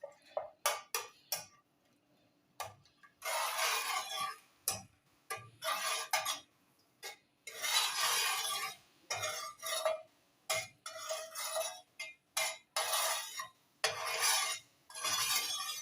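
A spoon stirring and scraping around a pot in irregular strokes with short pauses and a few clinks, working stearic acid, emulsifying wax and cetyl alcohol as they melt over low heat.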